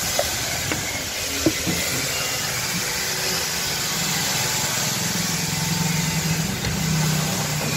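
Street traffic over a steady hiss, with a motorcycle engine's hum growing louder about five seconds in and easing off near the end; a couple of light knocks near the start.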